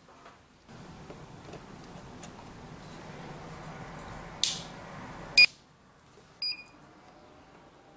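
Rocker power switch of an LMB SEALmatic H blood-bag tube sealer clicked on, then a sharp click and short high beeps as the unit powers up. A low steady hum stops abruptly with the loudest click.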